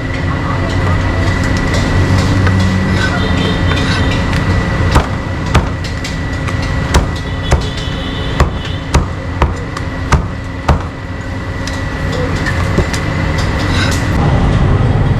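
A cleaver chopping meat on a wooden block, about nine sharp chops roughly half a second apart in the middle of the stretch, over a steady low rumble of traffic or machinery.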